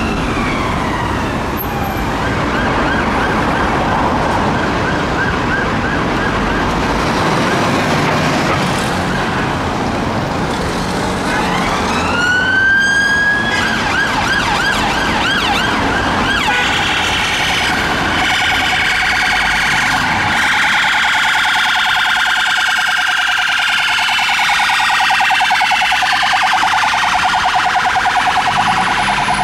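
British police car sirens in traffic: rising wails alternating with a fast yelp, then from about halfway a harsher, rapidly pulsing tone that carries on to the end, with engine and traffic noise underneath.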